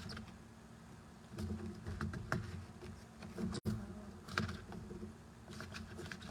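Cardstock card bases and envelopes being handled and counted through, with soft paper rustles and light taps over a faint low hum.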